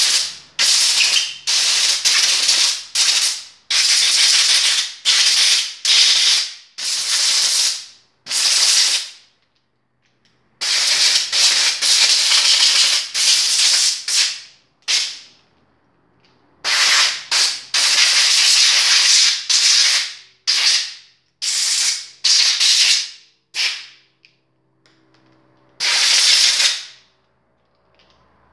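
Compressed-air blow gun blasting air through a dirty plastic lawn-mower carburettor to clean it out: a long series of sharp hissing blasts, some short puffs and some held for a second or two, with brief pauses between them.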